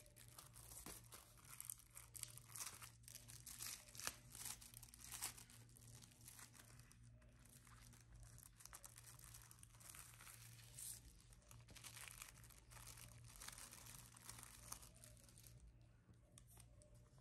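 Faint, irregular scratchy crackling and rustling of paper and coloured sand as a sand-art picture is worked, with a steady low hum underneath.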